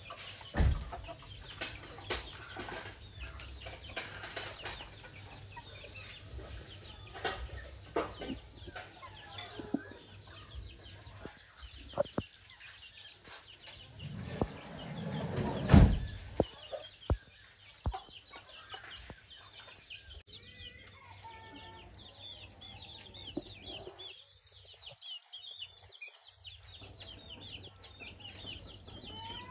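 Chickens clucking, with chicks peeping in short high calls, mostly in the last third. Scattered knocks, and a loud thump about halfway through.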